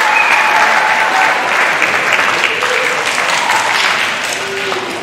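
Audience applauding, a dense steady clapping that eases slightly near the end.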